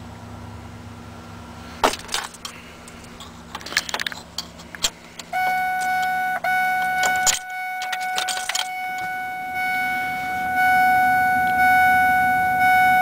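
Keys jangling and clicking as they are handled at the ignition of a Ford 7.3L Powerstroke pickup. About five seconds in, a steady electronic warning tone from the dashboard starts and holds, broken briefly twice, with a sharp click near the middle.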